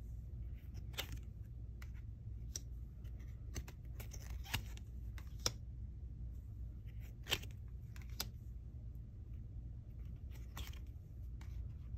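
Foil trading cards being slid off a small stack and swapped one by one by hand, giving irregular sharp ticks and light paper slides, over a steady low hum.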